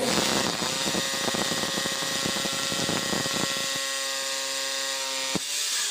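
Electric hammer drill boring into a concrete wall, most likely a hole for an expansion bolt. The motor whines steadily under rapid hammering. The pitch drops as the drill stops near the end.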